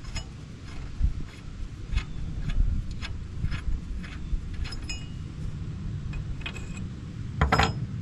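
Light metallic clicks from hand tools on steel, about one or two a second, as a keeper bolt is worked out of a mini skid loader's track tensioner. A louder burst of metal clinking near the end, over a steady low rumble.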